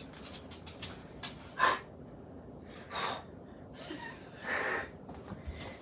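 Siberian husky giving a breathy huff, a short snort-like exhale about four and a half seconds in, the loudest sound here.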